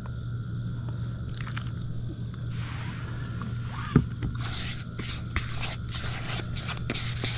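Fishing groundbait being mixed by hand with water in a bowl. A single knock about four seconds in is followed by quick, repeated scraping strokes.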